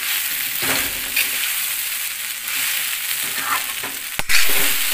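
Poha and peanuts sizzling in a hot steel kadhai while a metal spatula stirs and scrapes through them in repeated strokes. A sharp knock comes near the end.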